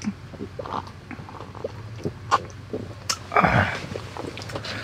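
Snacking and drinking at a table: crunching of honey-butter peanuts and small clicks of stainless cups being handled. A short, louder breathy sound comes about three and a half seconds in.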